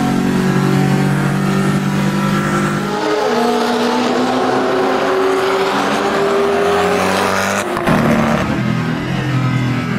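Koenigsegg V8 supercar engines on a race track, in edited segments. First a steady engine note heard from inside the cabin. About three seconds in, it cuts to a black Koenigsegg driving past trackside, its engine note climbing and then holding, with a rush of noise. Near the end, a strong onboard engine note returns.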